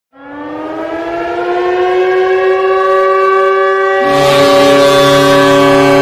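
CSKA Moscow's hockey goal horn sounding: one long horn note that slides up in pitch as it comes up to strength, then holds steady and loud. About four seconds in, a second, lower steady tone and a hiss join it.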